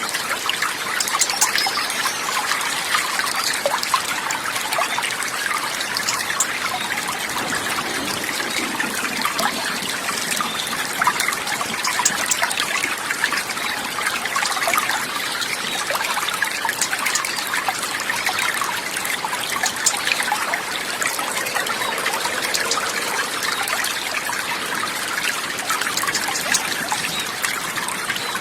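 Steady trickling and babbling of running water, like a small stream, with a constant level and a fine bubbling texture.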